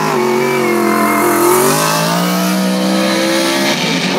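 Race car engines running hard on a dirt speedway, the engine note climbing as the cars accelerate, dipping briefly near the end and climbing again.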